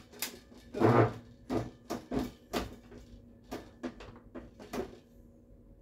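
Wooden cot frame knocking and clicking as it is handled: about a dozen separate sharp knocks, the loudest about a second in, dying away near the end.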